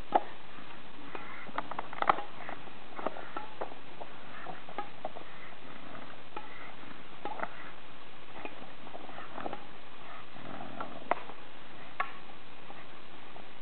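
Badminton rackets striking a shuttlecock: a few sharp, separate taps, near the start, about two and three seconds in, and twice near the end, over a steady background hiss, with faint breathing sounds from the bulldogs chasing it.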